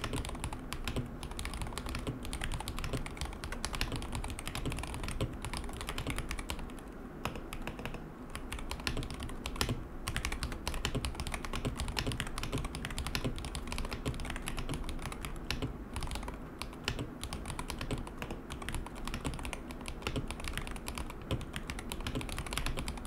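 Continuous fast typing on an MCHOSE Jet75 Hall-effect mechanical keyboard with Kailh God switches: a steady run of key clicks and clacks from the keystrokes.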